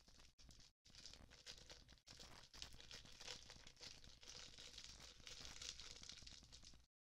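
Faint crinkling and rustling, a dense crackle that starts about a second in and stops shortly before the end.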